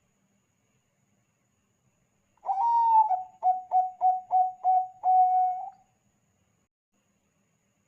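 Zebra dove (perkutut, Thai-bred 'Bangkok' strain) cooing one song phrase: a long opening note, a quick run of about five short notes, then a longer closing note.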